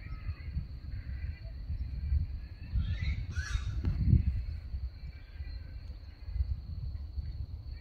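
Outdoor ambience: faint bird chirps and a steady high thin whine over low wind rumble on the microphone, with a short, louder harsh call about three seconds in.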